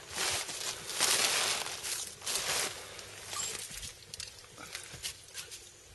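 A small dog sniffing hard in a wood pile, hunting for a rat: a run of short, noisy sniffs in the first three seconds, then only faint rustles and ticks.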